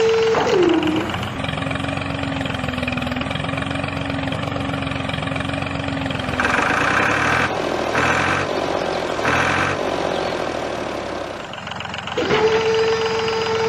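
Small motor of a toy-scale DIY tractor running with a steady whine that drops in pitch about half a second in. About six seconds in it turns rougher, with three or four louder pulsing stretches, and the higher whine returns near the end.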